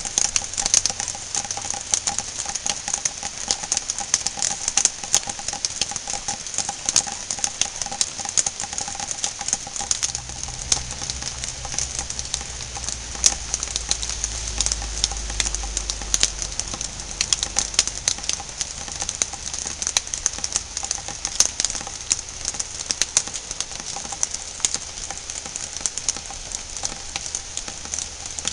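Rain pattering on a translucent green overhead covering, a dense run of quick drop ticks over a hiss. A low rumble swells in about a third of the way through and fades again.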